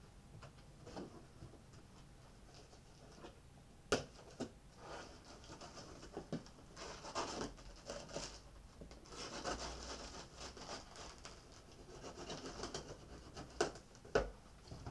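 A long cardboard box being opened by hand: a blade scraping and cutting along the top, with cardboard rubbing and flaps being pulled. There are a few sharp knocks, about four seconds in and twice near the end.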